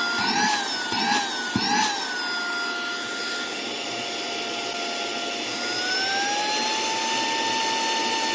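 Saker mini cordless handheld vacuum's brushless motor running with a steady high whine. The pitch wavers three times in the first two seconds, then rises about six seconds in as the motor speeds up.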